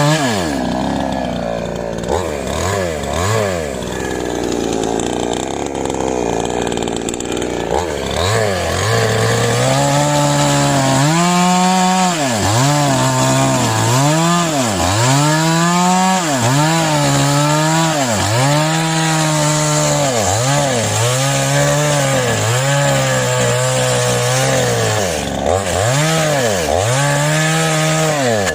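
A small engine-driven power tool running hard, its pitch repeatedly sagging and recovering about once a second. For the first several seconds it runs lower and rougher.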